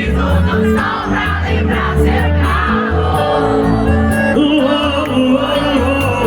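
Live sertanejo concert music: a band plays with heavy bass under sung vocals.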